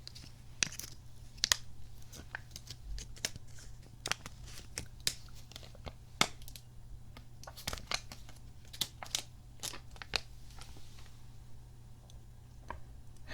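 Close-up handling of a small plastic kidney-bean squeeze toy: irregular sharp clicks and crinkles, a few of them loud, over a steady low hum.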